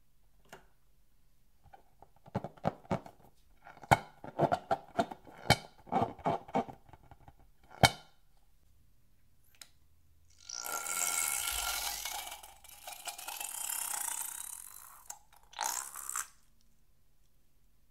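Rubber balloons squeaking and knocking as a hand handles them. Then a filled balloon is squeezed and its liquid spurts out through the neck, with two long hisses and a short one near the end.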